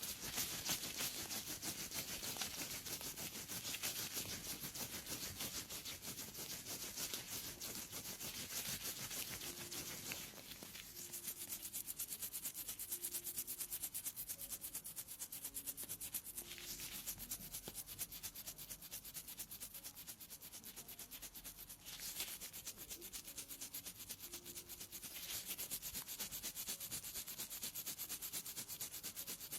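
Pedicure tool scraping skin on the sole of a foot with athlete's foot, in rapid, closely spaced short strokes. It softens about ten seconds in and grows louder again near the end.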